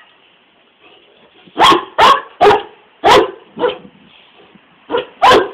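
Dog barking: a quiet start, then a run of about five sharp barks roughly half a second apart from about a second and a half in, and two more near the end.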